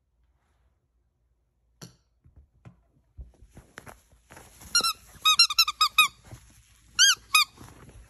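A quick run of about eight short, high squeaks, each rising and falling in pitch, then two more squeaks near the end, after a click and a few soft knocks.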